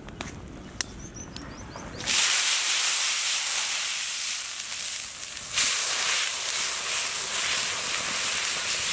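Water splashed onto a very hot steel griddle plate over a wood fire, flashing into steam with a loud hiss and sizzle. The hiss starts suddenly about two seconds in and surges again a few seconds later as more water hits the plate.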